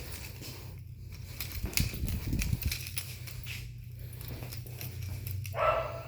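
Kittens scampering and pouncing while playing, with a run of soft thumps on the floor about two seconds in and a short, pitched squeak near the end, over a steady low hum.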